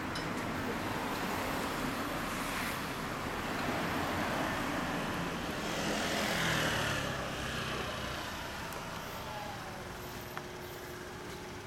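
Road traffic going by on a street. One vehicle passes about six seconds in, getting louder, then falling in pitch as it goes away.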